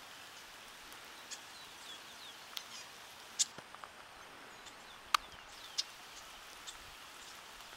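Steady patter of light rain, with scattered sharp single ticks of raindrops landing close by, the loudest about three and a half and five seconds in. A few faint bird chirps.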